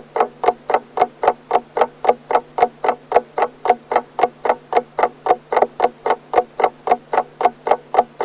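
Pendulum clock ticking steadily, about four ticks a second, each tick with a short melodic ring.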